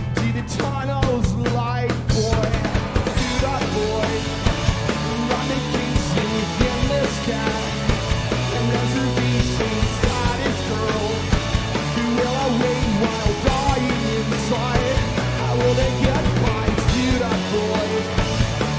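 Live rock band playing: electric guitars, bass and drum kit driving a steady beat, with a lead singer's vocal.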